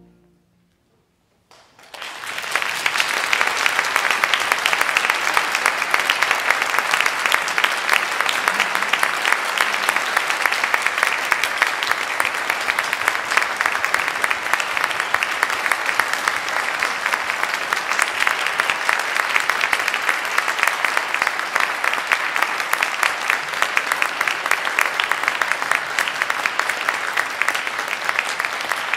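The last chord of a concert band dies away, and after a brief hush a large audience applauds steadily.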